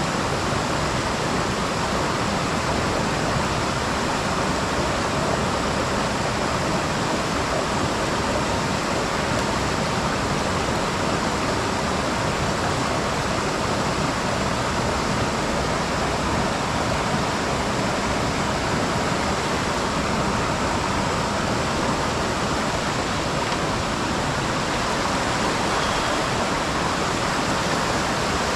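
Mountain stream rushing, a steady, unbroken water noise.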